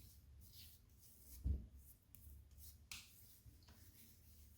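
Faint rubbing and handling noises, with a soft thump about a second and a half in and a light click about three seconds in.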